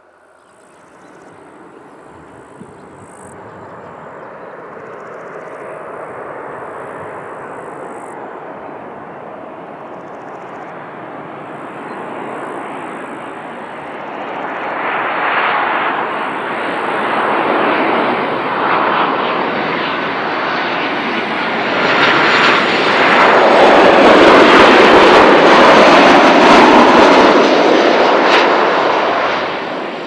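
Boeing 737-800's CFM56-7B jet engines on final approach with gear and flaps down: a rushing jet noise that builds steadily as the airliner comes closer, is loudest and deepest as it passes close about three-quarters of the way through, and then begins to fall away near the end.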